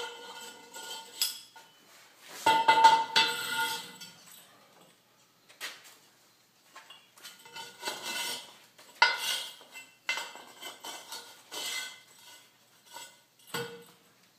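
Steel pipe and short steel pipe sleeves clanking and scraping against each other as the sleeves are slid along a long pipe lying on a concrete floor. The clinks are irregular, each ringing briefly, with the loudest clatter about two to three and a half seconds in.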